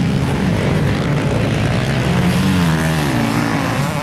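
Motocross dirt bike engines running and revving, the pitch climbing and dropping about two to three seconds in.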